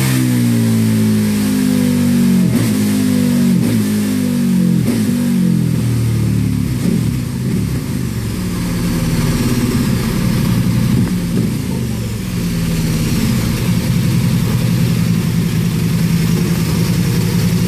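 KTM 1290 Super Duke R's V-twin winding down from about 9,500 rpm at the end of a full-throttle dyno run, with three sharp cracks as the revs fall. It then settles to a steady idle about seven seconds in.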